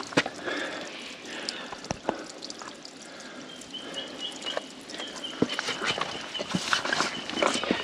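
Footsteps on rock: irregular hard knocks and scuffs of boots on stone slabs. A thin, high, steady tone joins about halfway through.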